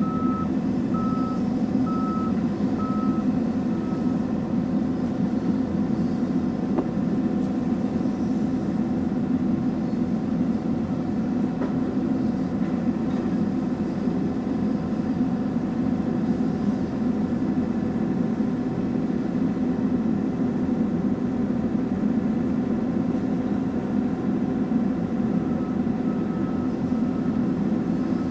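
Diesel engine running steadily, heard from inside an excavator cab. A reversing alarm beeps at an even pace for the first few seconds and again near the end.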